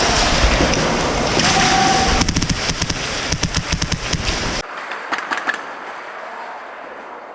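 Airsoft electric guns (AEGs) firing in rapid strings of shots during a close-range exchange, busy and loud, then dropping abruptly about four and a half seconds in to a quieter stretch with only a few scattered shots.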